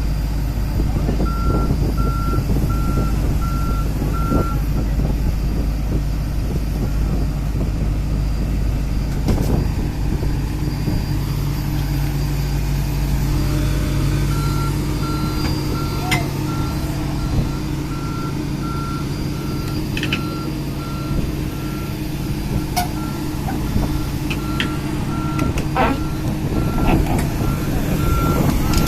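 PC300 excavator's diesel engine running steadily while its travel alarm beeps about twice a second, stopping for several seconds and then starting again. A few sharp knocks come through in the second half.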